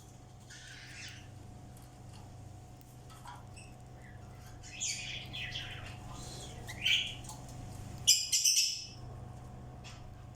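Birds calling in short, scattered bursts of high-pitched chirps. The loudest and longest call comes about eight seconds in. A steady low hum runs underneath.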